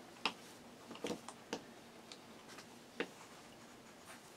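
Faint rustling of cotton quilt fabric being smoothed by hand, with a few soft ticks and rubs as a handheld seam roller presses the seams flat.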